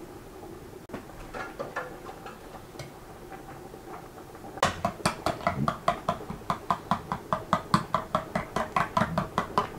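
Metal spoon beating thick yogurt in a glass bowl: a few soft clinks at first, then, about halfway through, a fast steady run of clinks of the spoon against the glass, about five a second.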